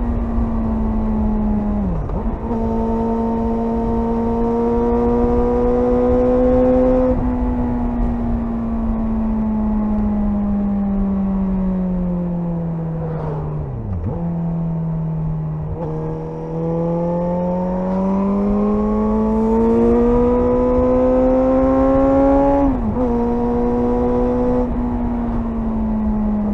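Suzuki GSR 600's inline-four engine under way: it holds a steady note, sinks slowly as the bike eases off, then climbs steadily under acceleration. Its pitch dips sharply about two seconds in, near the middle and again near the end, as gears are changed.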